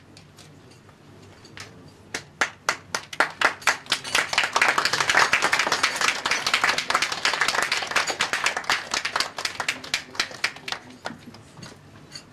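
Audience clapping: a few scattered claps grow into full applause within a couple of seconds, hold, then thin out and die away near the end.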